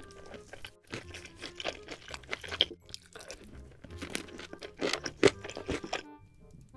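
Close-miked crunching and chewing of sweet sauce-coated fried chicken: a run of crisp crunches, the sharpest just past five seconds in, that stops about six seconds in. Soft background music plays underneath.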